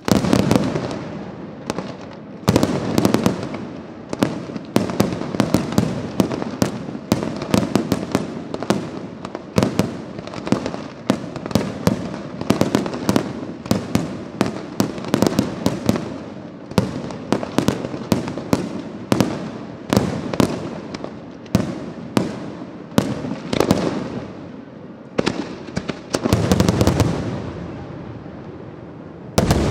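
Fireworks display: aerial shells bursting in a dense, continuous barrage of sharp bangs, several a second, over a low rumble. The bangs thin out briefly near the end before a new cluster starts.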